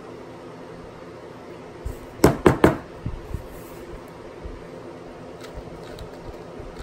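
Three quick sharp knocks about a quarter second apart, followed by a few lighter taps, as a painted wooden shutter louver is handled and tapped while its pivot pins are fitted.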